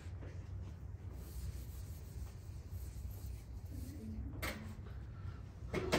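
Quiet classroom room tone with a steady low hum and faint rustling handling noise, broken by a sharp click about four and a half seconds in and another near the end.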